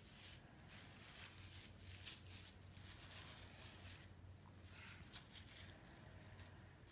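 Near silence: faint room tone with a low steady hum and a few soft, brief rustles.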